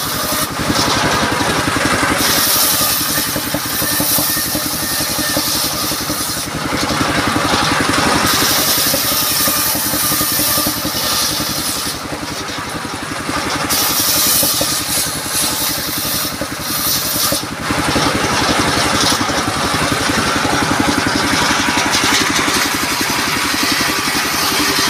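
Diesel engine running steadily, driving a large circular saw blade that rips waru (sea hibiscus) planks into battens. The high-pitched noise of the blade cutting through the wood comes and goes with each pass, with short lulls between cuts.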